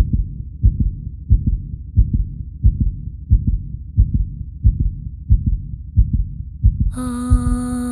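A heartbeat sound effect: deep double thumps, lub-dub, repeating about every two-thirds of a second. Near the end, sustained music comes in over the beat.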